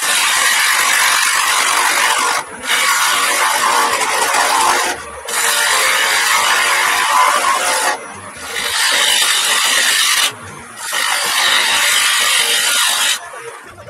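Turning tool cutting spinning end-grain wood on a lathe, a loud scraping and shaving noise. It comes in about five long cuts with short breaks between them.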